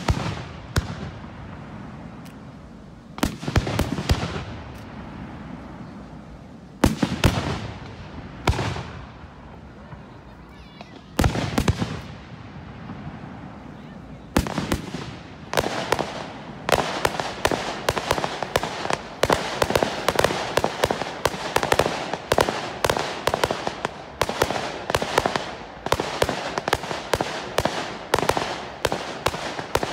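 Aerial fireworks going off: single shell bursts a few seconds apart, each bang followed by a short crackling tail, then from about halfway a rapid barrage of bangs, several a second.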